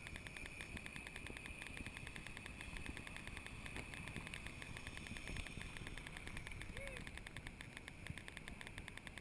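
Faint open-air ambience: a low wind rumble on the microphone with a steady, rapid, high-pitched ticking throughout, and one short faint chirp near the end.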